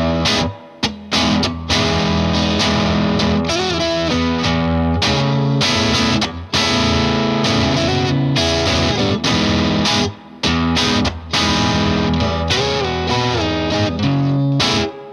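Fender '57 Stratocaster played through an MXR Duke of Tone overdrive pedal into a Vox AC15 valve amp, with a driven, gritty tone. It plays chords and single-note lines with a few string bends and short stops between phrases.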